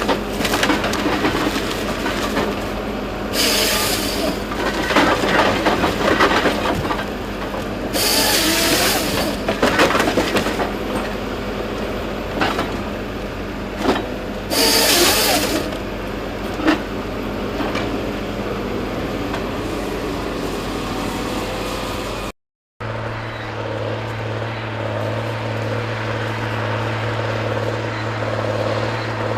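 Heavy logging machine's engine running steadily while logs are handled, with repeated sharp cracks and knocks of wood and three short bursts of hiss. After a cut a little over two thirds of the way through, a different machine engine drones steadily at a lower pitch.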